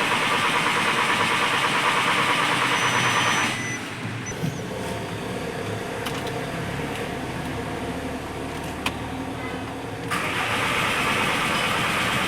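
Engine noise from a Volkswagen Jetta 2.0 TDI diesel: a loud, steady whirr that drops to a quieter low hum about three and a half seconds in, with a couple of faint clicks, and returns loud near the end.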